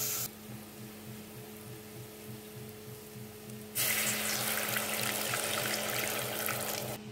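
A fried paste sizzling softly in a stainless steel pot, then, about four seconds in, a stream of water poured into the hot pot with a loud rushing hiss that cuts off just before the end.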